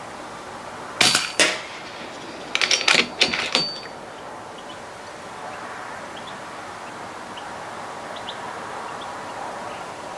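Sharp metallic clinks and knocks: two about a second in, then a quick run of several between about two and a half and three and a half seconds, one ringing briefly.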